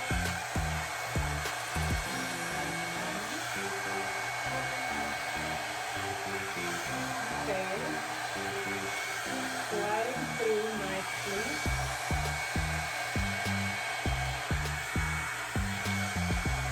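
Revlon One-Step hair dryer brush running steadily on its low setting: a constant rush of air with a thin high motor whine. Background music with a steady beat plays underneath.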